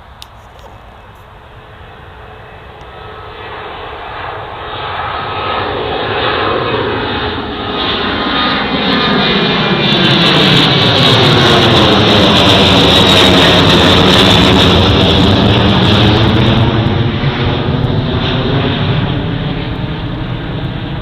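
Ryanair Boeing 737's twin jet engines at take-off power as the airliner passes. It swells from a distant rumble to a loud rush about halfway through, with a sweeping, phasing sound as it goes by, then slowly fades.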